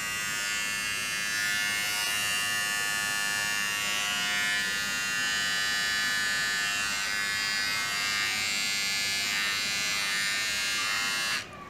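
Philips Series 3000 (QT4011) beard trimmer switched on and running with a steady high-pitched buzz from its motor and cutting blade, switched off near the end.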